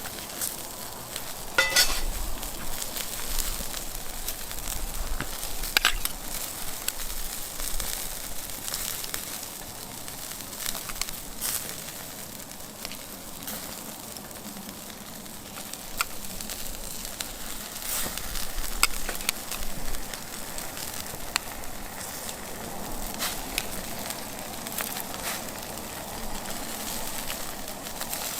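Wood fire burning in a fire pit: a steady hiss and crackle, with sharp pops every few seconds.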